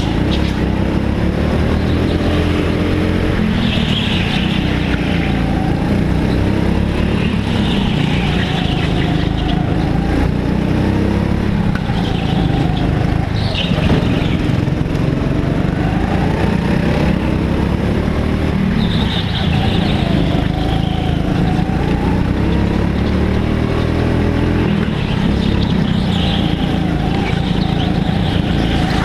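Racing go-kart engine heard on board, its pitch repeatedly rising and falling every few seconds as it speeds up and slows through the corners, with other karts running close by. Short high squeals, typical of the tyres sliding in corners, come several times.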